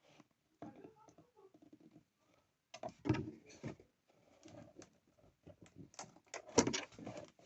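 Cardboard laptop box and its packaging being handled: scattered rustles, scrapes and knocks, the loudest knock about six and a half seconds in.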